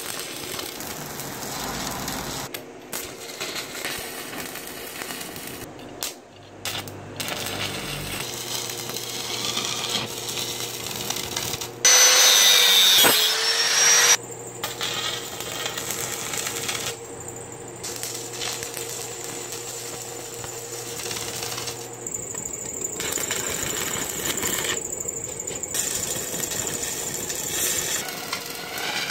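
Stick welding on steel pipe: the electric arc's steady crackle and sizzle over several short welds. A much louder power tool runs briefly about twelve seconds in, its pitch falling as it stops.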